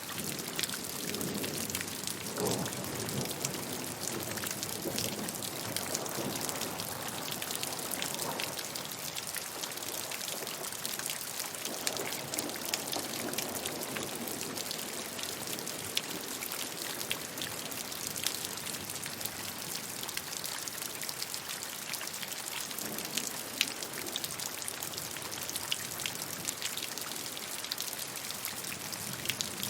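Steady rain falling, a dense hiss with many small drops pattering on a hard surface.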